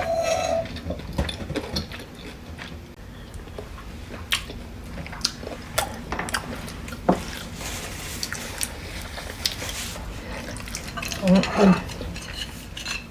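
Cutlery clinking and scraping against dishes and pots, with a few sharp taps.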